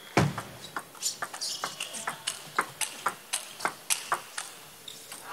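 Table tennis rally: the ball clicks sharply off rackets and table in a quick back-and-forth, several strikes a second. The strokes stop about four and a half seconds in.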